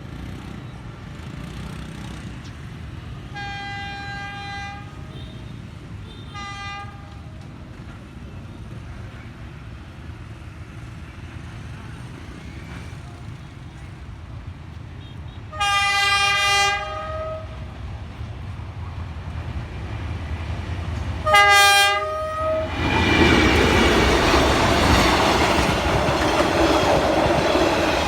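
Freight train horn sounding repeatedly as the train approaches over a low rumble: a long blast, a short one, a louder long blast, then two short loud blasts. The train then passes close, with loud steady wheel clatter on the rails.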